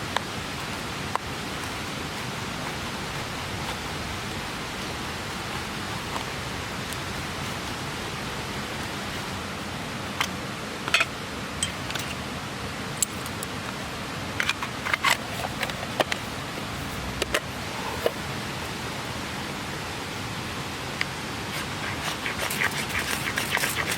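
Steady rushing of a clear mountain stream, with scattered sharp clicks and taps from about ten seconds in that come thicker near the end.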